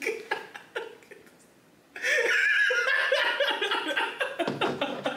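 Men laughing: a few short chuckles, a brief lull, then loud, sustained laughter from about two seconds in.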